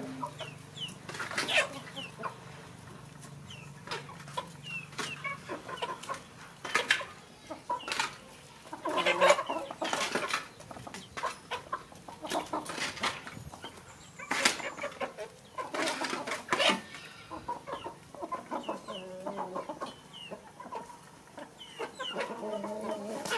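Chickens clucking on and off, in short irregular calls with some higher chirps, loudest in a few clusters.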